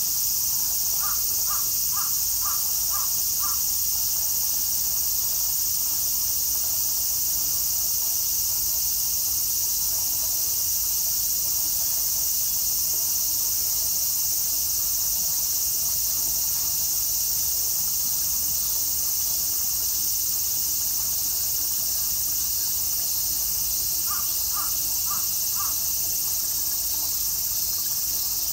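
Steady high-pitched drone of summer insects, with a quick run of six short calls about a second in and four more near the end.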